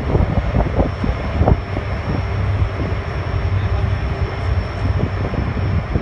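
Wind buffeting the microphone in irregular low thumps over the steady low drone of a car ferry's engines, with a faint steady high whine.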